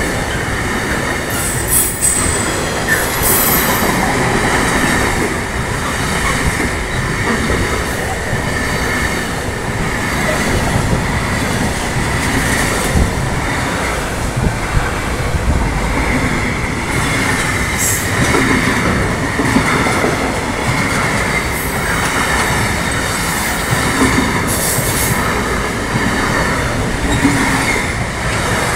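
Long freight train of intermodal wagons rolling past at close range: a steady rumble and rattle of wheels over the rails, with a few brief high wheel squeals along the way.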